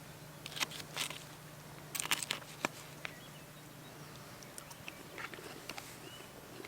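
Food being bitten and chewed close to the microphone: several sharp crunches in the first three seconds, over a faint steady low hum that fades out past the middle.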